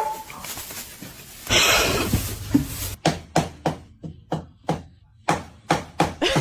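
A rustling, scraping noise, then a run of short sharp taps or knocks, about three a second, through the second half.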